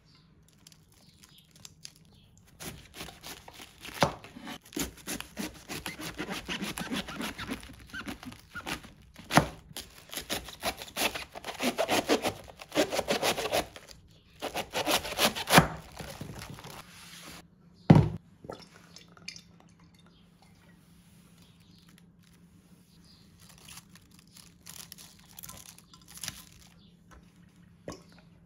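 Knife cutting through cabbage on a wooden chopping board in long runs of rapid, crisp strokes, with one sharp knock on the board about eighteen seconds in.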